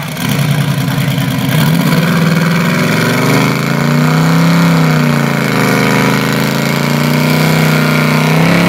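Supercharged V8 muscle car engine held at high revs during a burnout, its note rising and falling, with the rear tyres spinning on the asphalt.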